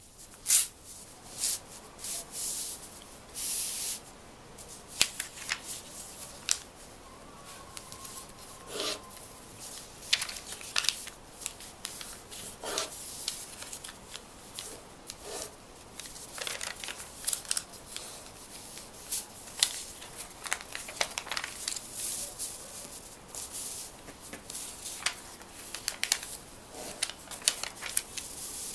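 Paper being folded and creased by hand: irregular rustles and short rubbing strokes.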